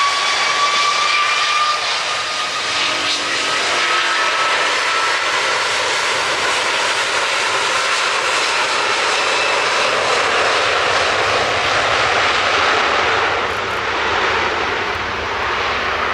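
Heavy jet airliner's engines running loud and close, a steady rushing noise with a whine that slowly rises in pitch over the first few seconds.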